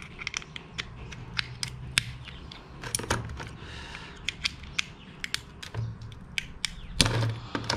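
Cooked mud crab knuckle shell being cracked open: irregular sharp clicks and crackling snaps, with a louder crunch near the end.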